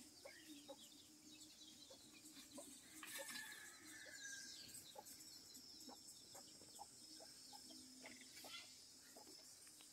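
Near silence: a faint farmyard background with distant bird calls, one falling call about three seconds in, and a few soft ticks.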